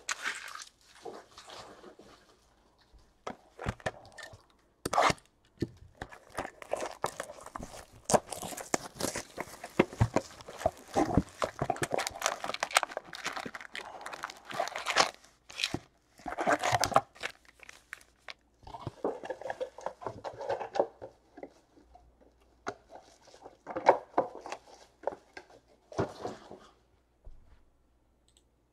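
Cardboard trading-card hobby box being opened by hand and its foil-wrapped packs pulled out and stacked: irregular crinkling, tearing and small taps in bursts, stopping shortly before the end.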